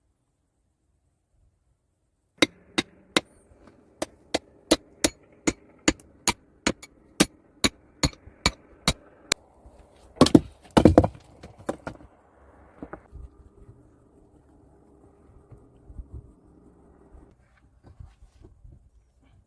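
A tool striking repeatedly in a steady rhythm, about two or three sharp chopping blows a second for some seven seconds, then a louder, rougher noise lasting about a second, followed by faint scattered knocks.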